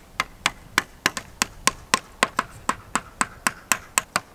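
Hammer driving a nail into a tree trunk in quick, even strikes, about four a second, tacking up a posted sign.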